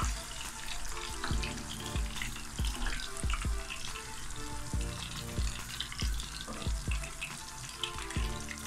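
Battered surmai (kingfish) pieces shallow-frying in hot oil in an aluminium pan: a steady crackling sizzle. Underneath runs a low beat, about one thump every two-thirds of a second.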